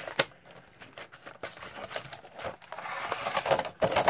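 Clear plastic blister packaging being pulled open by hand: scattered crackles and clicks of the flexing plastic, then a longer rustling crinkle about three seconds in.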